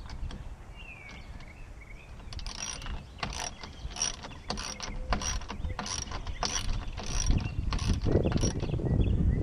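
Metallic clicking, about two a second, from hand work on a tonneau cover's rail clamp along a pickup bed. A low rumble builds near the end.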